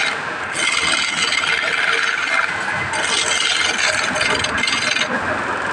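Wood lathe spinning a cylindrical wooden blank while a hand-held turning chisel cuts into it, giving a continuous hissing, scraping cut with the lathe running under it. The cutting drops away briefly at the start and again about five seconds in, as the tool comes off the wood.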